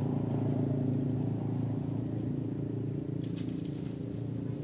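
An engine idling steadily with an even hum, with a brief crackle of small clicks a little past three seconds in.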